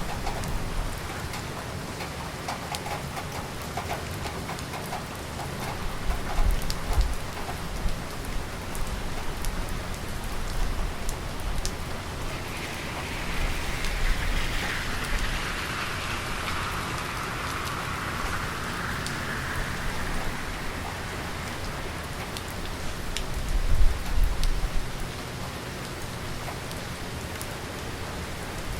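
Heavy rain falling steadily on city surfaces, with many individual drops ticking through the hiss. Low rumbles of thunder swell twice, the stronger one near the end, and a broader rushing hiss swells and fades in the middle.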